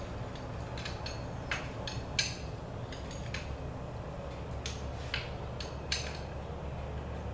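Scattered metallic clinks and taps of a hand tool at the distributor hold-down clamp of a Chevelle's V8 as the distributor is locked down, over a low steady hum.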